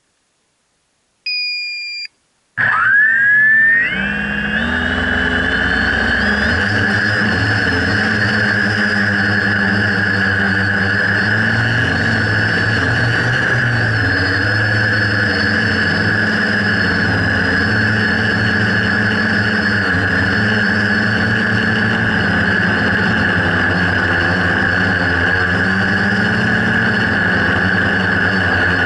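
A short beep, then a quadcopter's electric motors spin up with a quickly rising whine and settle into a steady high whine as it flies, heard through the camera mounted on the quad.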